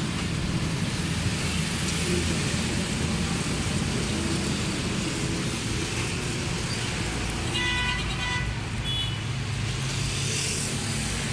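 Steady road traffic noise with vehicle engines running. A vehicle horn sounds briefly about seven and a half seconds in, and again, shorter, about nine seconds in.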